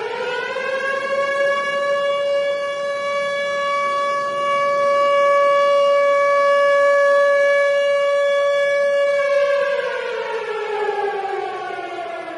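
A siren alarm. Its tone rises over the first second to a steady high pitch, holds there for about eight seconds, then winds down in pitch near the end.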